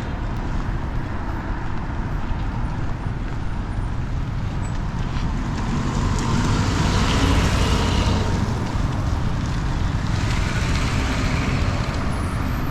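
Road traffic noise: a steady rumble of motor vehicles on the road, swelling as vehicles pass about halfway through and again near the end.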